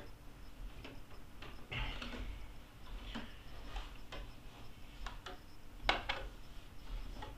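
Bare feet stepping down an open wooden staircase: a series of irregular soft knocks and taps, the loudest about six seconds in.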